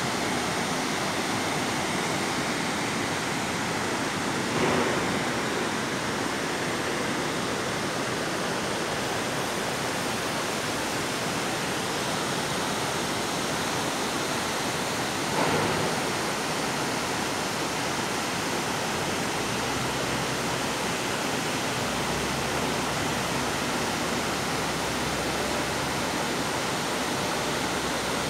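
Steady rushing of a mountain waterfall and the stream cascading over rocks below it. Two brief louder bumps come about five seconds in and again about fifteen seconds in.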